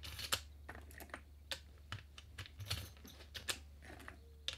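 Irregular sharp clicks of .38 Special cartridges being pushed one after another through the loading gate into the Henry X lever-action rifle's magazine tube, about ten clicks in all.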